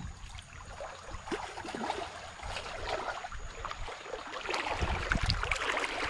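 Shallow water splashing and sloshing around a person wading in boots, with a net dipping in it; it grows louder about four and a half seconds in.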